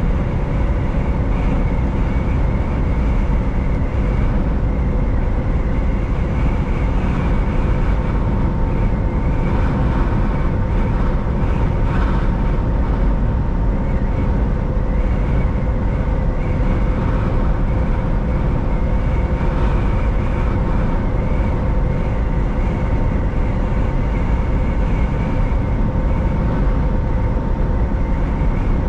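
Semi truck driving at a steady speed: a constant low drone of engine and road noise, with a few faint steady whining tones above it.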